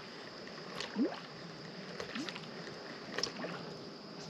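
Topwater lure being worked across the lake surface: three short rising bloops, about a second apart, with small clicks, over a steady high hiss.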